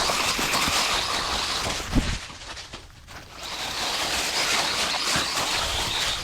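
Radio-controlled truck running over the ground, a steady whirring noise, with a sharp thump about two seconds in; it drops away briefly around three seconds, then picks up again.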